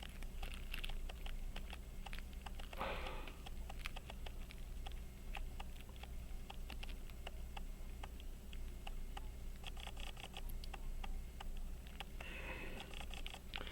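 Small, irregular clicks and light taps of a hand tool working against the parts of a pocket watch movement, trying to get under a part to lift it off. A sniff or breath about three seconds in and another near the end.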